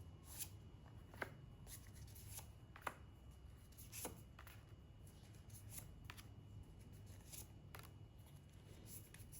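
Tarot cards being shuffled and drawn from the deck: faint, scattered soft clicks and slaps of card on card, a second or two apart, over a low steady hum.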